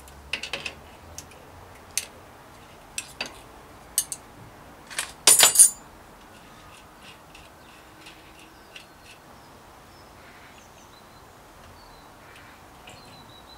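A series of metal clicks and clinks from parts and tools being handled while working on a bicycle, the loudest a short rattling clatter about five seconds in. After that, faint bird chirps.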